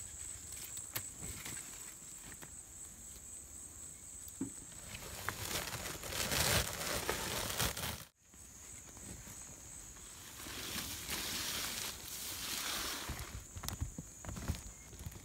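Rustling and handling noise with small scattered clicks, louder for a few seconds twice, over a faint steady high-pitched hum; the sound cuts out for an instant about eight seconds in.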